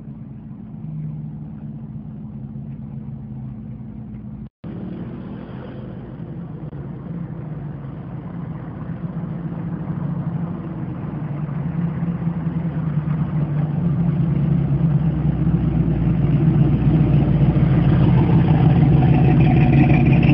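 LS V8 engine in a box Chevy Caprice running as the car drives along the street, getting steadily louder through the second half as it comes up close. There is a brief dropout about four and a half seconds in.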